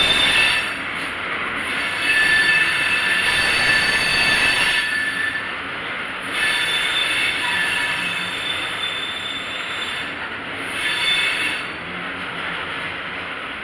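Loaded oil-train tank cars rolling past, their steel wheels rumbling on the rails. A high-pitched wheel squeal comes and goes about four times.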